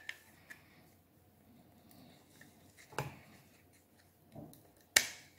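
Plastic case parts clicking and knocking as they are pressed onto a small circuit board: a few separate sharp clicks a second or more apart, the loudest near the end.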